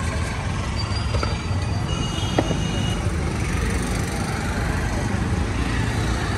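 Steady rumble of street traffic, with a few faint clicks and clatters.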